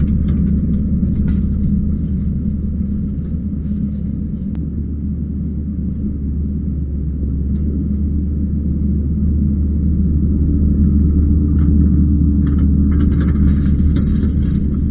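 Kubota skid steer's diesel engine running steadily with a low rumble. It eases off slightly mid-way and comes back up about ten seconds in, with faint clatter near the end.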